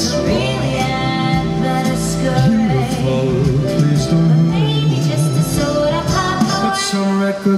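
Show soundtrack music with singing, played loud and continuous over the water show's sound system.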